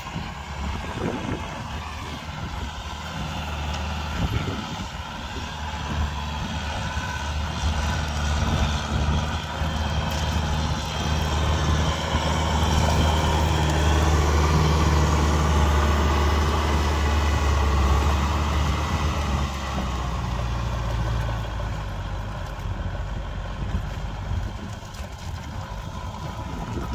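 Farm tractor engine running steadily under load as it pulls a rotary tiller through dry soil. It grows louder as the tractor passes close, about halfway through, then fades as it moves away.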